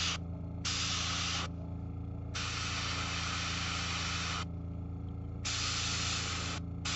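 Airbrush spraying paint in a series of hissing bursts of about one to two seconds each, cut off and restarted with short pauses between, over a steady low hum.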